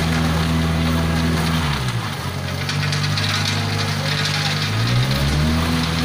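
Diesel engine of a self-loading concrete mixer running steadily at high revs. Its speed drops about two seconds in and comes back up near the end, while the drum discharges concrete down the rear chute.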